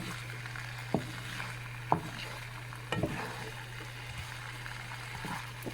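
Fries frying in hot oil with a steady sizzle, broken by sharp ticks about once a second. A steady low hum runs underneath.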